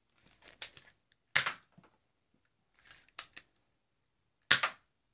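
Plastic clicks of a Nerf Zombie Strike foam-dart pistol being worked, with two loud sharp snaps about a second and a half and four and a half seconds in, as the pistol is primed and fired.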